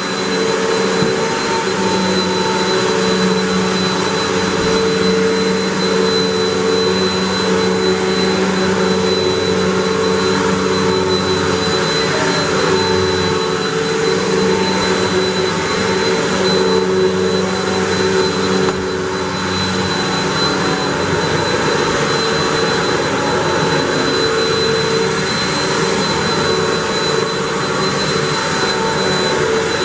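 Hoover WindTunnel 3 Pro Pet upright vacuum cleaner running with its brush roll on as it is pushed over carpet, picking up cat hair and dirt: a steady motor sound with a thin, constant high-pitched whine.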